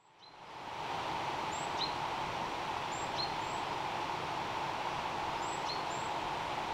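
Steady rushing drone of a heavy plane passing overhead, fading in over the first second, with brief high bird chirps now and then.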